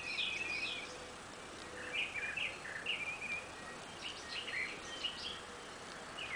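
Birds chirping in short runs of quick notes, several times over, above a faint steady background hiss.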